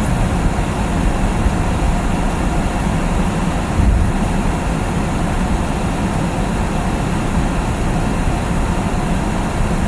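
Steady low road and tyre rumble inside a car's cabin while driving on a snowy road, with one brief bump about four seconds in.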